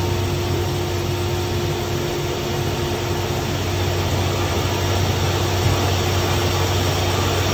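Coin-operated rice-polishing machine running with a steady loud drone and a constant low hum while it draws brown rice down from the hopper to mill it.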